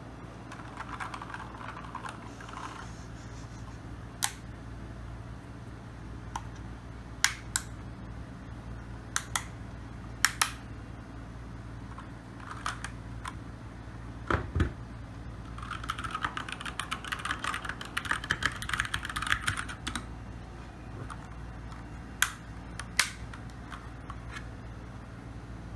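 Keychron K2 mechanical keyboard with brown switches being typed on. It starts with a few soft keystrokes, then single key presses come every second or two, with one deeper thump around the middle. A fast run of typing follows for about four seconds, and two more single presses come near the end.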